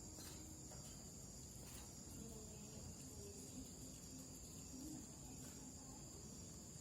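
Faint, steady high-pitched chirring of insects, with a few faint ticks.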